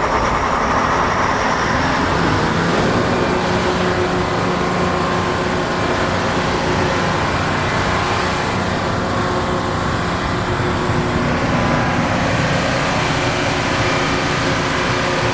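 Large generator engine running steadily, a loud, even drone with no pauses.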